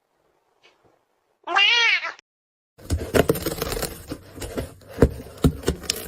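A cat meows once, a single wavering call about a second and a half in. From about three seconds on comes a busy stretch of knocks and clatter.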